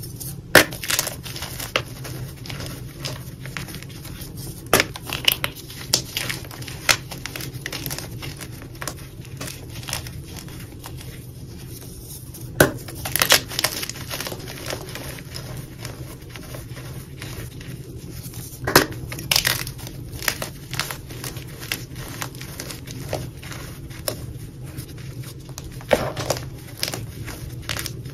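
Soft blocks of gym chalk being crushed by hand into a bowl of cornstarch powder: a dry, crumbly crunching throughout, broken by sharp cracks every few seconds as pieces of block snap apart.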